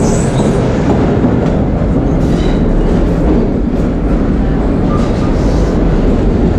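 A 1930s vintage subway car running on the rails, heard from inside the car: a loud, steady rumble of wheels and running gear.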